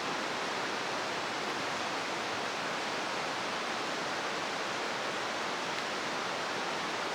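River water rushing, a steady even hiss with no change.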